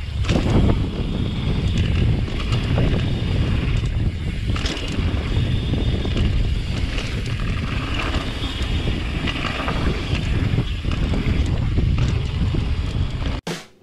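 Wind buffeting an action camera's microphone and tyres rumbling on hard-packed dirt as a dirt jump bike rides fast down a jump track, with a few brief knocks from the bike. The sound cuts off abruptly near the end.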